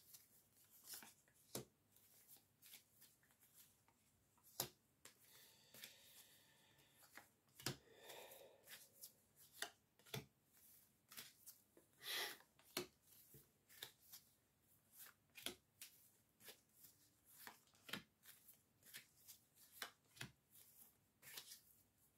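Oracle cards being shuffled and handled: faint, irregular small snaps and ticks, several a second at times.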